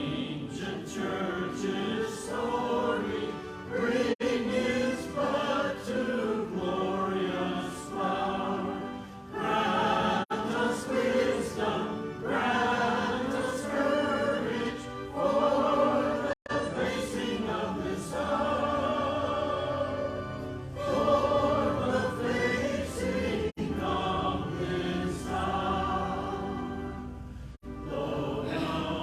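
Church congregation singing a hymn together, phrase after phrase with short breaks between lines.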